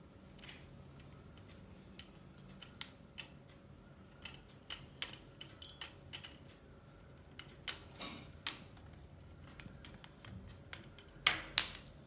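Irregular light clicks and taps as a budgerigar handles a wooden clothes peg with its beak against the metal ring and mesh of its stand. The loudest are two sharp taps close together near the end.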